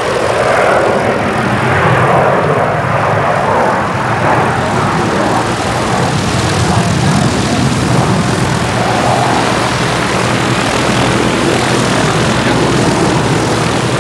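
Pitts Special aerobatic biplane's piston engine and propeller running steadily at low power as it taxis on grass.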